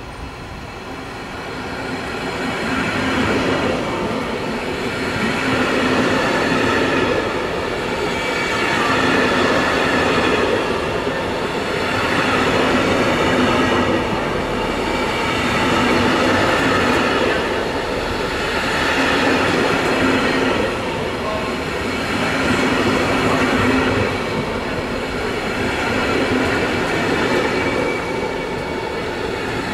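An electric locomotive and its intercity passenger coaches roll slowly into the station. The wheel and rail noise builds over the first few seconds as the locomotive draws near, then swells and fades every few seconds as each coach goes by, with a thin squeal from the wheels.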